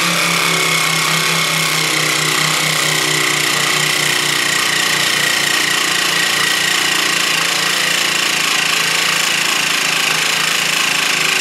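Handheld electric vacuum food sealer running on a glass jar's sealing lid, pumping the air out of the jar. Its motor runs steadily with a pulsing hum and a high whine that sags in pitch around the middle and climbs back near the end.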